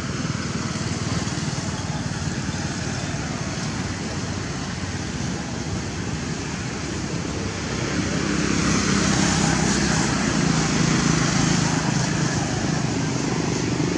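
Steady motor-engine noise, growing louder about eight seconds in, where a steady low hum sets in.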